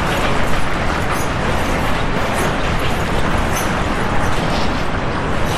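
Loud, steady rumbling noise with faint rattling over it during the shaking of the 2011 Tōhoku earthquake.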